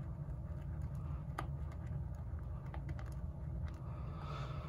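Boar-bristle shaving brush churning thick shaving-soap lather in a bowl, a soft wet swishing with scattered small clicks.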